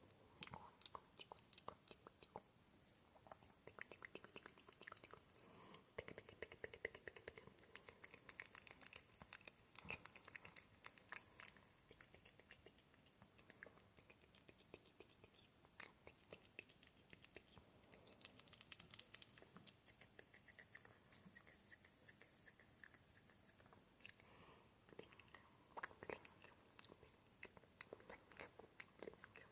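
Close-miked ASMR mouth sounds: soft, quick clicks and smacks in dense clusters, thinning out briefly twice, made with a dry mouth but worked to sound wet.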